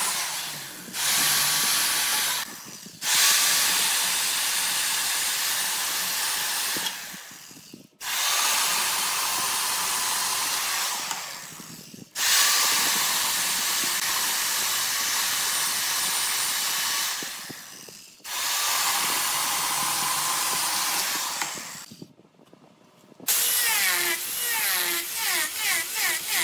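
Woodturning tool cutting into wood spinning on a lathe: a steady hiss of shavings that starts sharply, fades and starts again about five times. Near the end it changes to a rhythmic pulsing, about three times a second.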